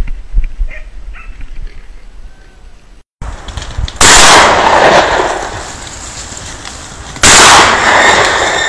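Two shotgun shots about three seconds apart, each very loud and sudden, with a long echoing tail that dies away over a second or more.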